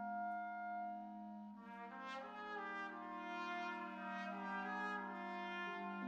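Wind band playing a slow passage: a held chord, then brass entering about a second and a half in with changing chords.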